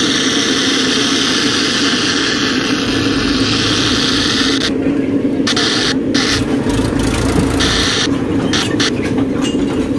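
Untuned FM static from a home theater amplifier board set to FM mode, playing loud through its speaker and subwoofer as a steady rushing hiss over a low hum. The hiss cuts out abruptly several times in the second half while the speaker plug is being worked in its socket.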